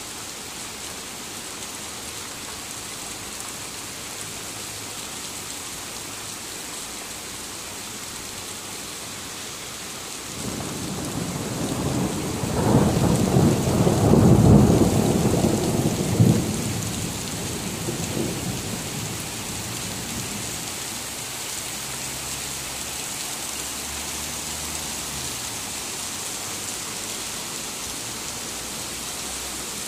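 Heavy rain falling steadily, with a long roll of thunder that swells about ten seconds in, is loudest a few seconds later and rumbles away over several seconds.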